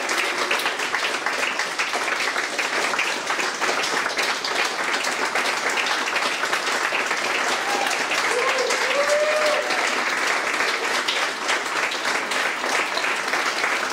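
Audience applauding steadily, with a voice briefly calling out about eight seconds in.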